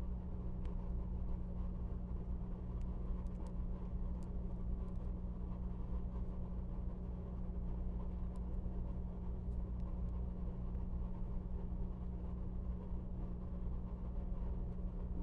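Steady low electrical hum, with a dozen faint clicks of a small plastic action figure being handled as a toy Gatling gun is fitted into its hand.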